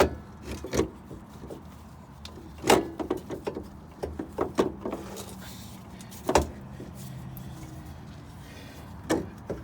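Scattered sharp metal knocks and clanks from hands and tools working on a car's front suspension: parts being shifted and knocked against the strut and body. A few single hits stand out, with a quicker cluster about halfway through, over a faint low steady hum.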